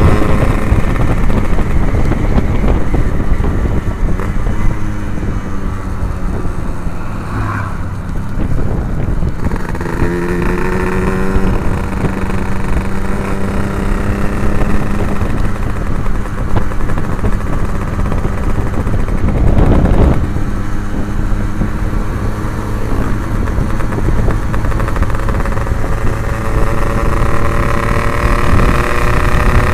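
Yamaha RX-King two-stroke motorcycle fitted with an Abbox C20 aftermarket exhaust, ridden on the road. Its engine note rises and falls with the throttle and climbs in pitch as it accelerates near the end, over low wind rumble.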